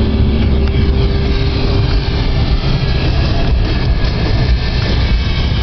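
Car driving on a snow-covered road, heard from inside the cabin: a steady engine and road rumble.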